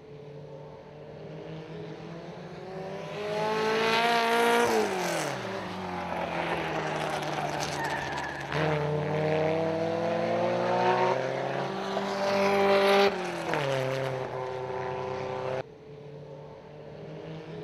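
Racing Volkswagen Beetles' air-cooled flat-four engines revving hard as the cars pass. The engine note climbs, then drops steeply as a car goes by about four to five seconds in. It climbs again twice later, with sudden jumps in sound where the shot changes.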